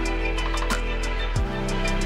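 Background music with a drum beat over sustained bass and chords.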